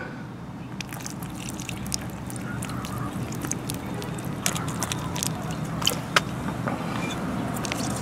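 Baking soda and water poured from a plastic cup onto the top of a car battery, spattering and dripping in many small scattered ticks and splashes, over a steady low background hum.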